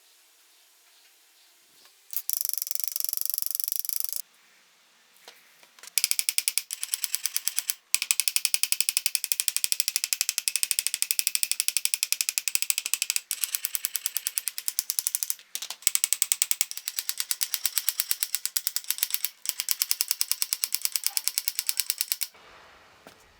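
A metalworking tool in use: a brief steady hiss about two seconds in, then a fast, even rasping rhythm that runs in several stretches with short breaks and stops near the end.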